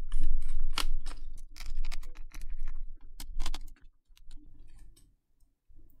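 Plastic clicks, knocks and key clatter of a Logitech K800 keyboard's key deck being handled and lifted out of its case: a rapid run of small clicks that thins out after about four seconds.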